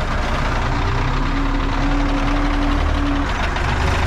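Belarus tractor's diesel engine running steadily under load while pulling a two-axle trailer over soft, wet field ground, without front-wheel drive engaged. Its pitch rises slightly partway through, and the low rumble swells near the end.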